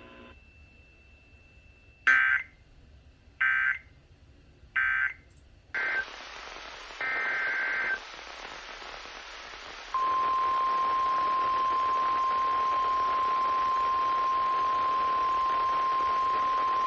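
Emergency Alert System SAME data bursts over a weather radio: three short warbling digital bursts, the end-of-message code of the warning just read, then a brief blip and a longer data burst as hiss rises. About ten seconds in, the steady 1050 Hz warning alarm tone starts and holds, the attention signal that comes before a new warning.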